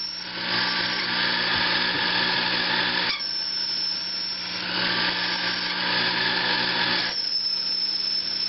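Early Sherline benchtop metal lathe running, its tool bit cutting a taper into a 6061 aluminum part under hand feed: a steady motor hum with the hiss of the cut. A thin high whine comes and goes three times, about three seconds apart.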